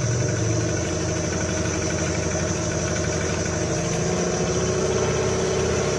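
A small boat's engine running steadily as the boat moves through the water, its pitch rising slightly about halfway through.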